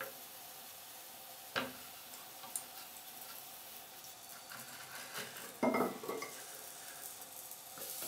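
A 24 V ultrasonic mist maker runs submerged in a cup of water with a steady faint hissing crackle. A sharp click comes about one and a half seconds in, and a short clatter of hard knocks against the glass cup comes around six seconds in.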